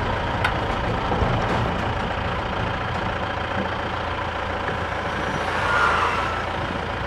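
Vehicle engine idling: a steady low diesel-like rumble, swelling slightly about six seconds in.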